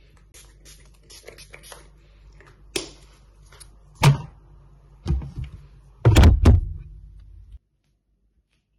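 A run of light clicks and taps, then heavier knocks and thuds, the loudest a cluster about six seconds in, over a low room hum; near the end the sound cuts off abruptly to silence.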